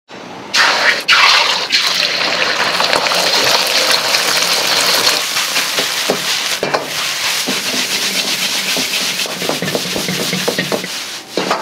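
Beaten egg hits hot oil in a wok with a loud sizzle about half a second in. The sizzling carries on as egg fried rice is stir-fried, with a metal ladle scraping and knocking against the wok in the second half.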